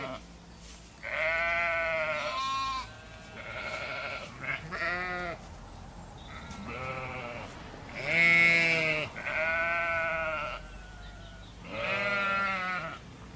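Sheep bleating: a series of about eight quavering bleats with short pauses between them, the loudest about eight seconds in.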